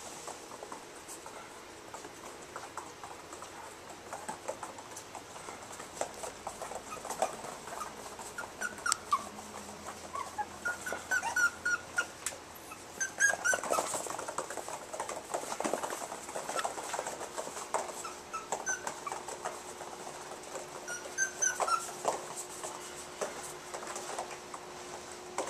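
Chinese Crested puppies playing, giving short high yips and squeals that come in clusters through the middle and again near the end, over many small clicks and taps.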